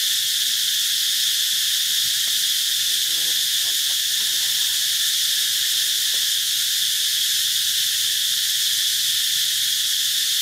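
Insect chorus: a steady high-pitched drone.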